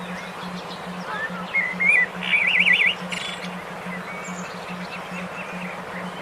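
Songbird calling: a few short whistled notes, then a loud, rapidly wavering trill about two seconds in, over a steady hiss and a low hum that pulses about two to three times a second.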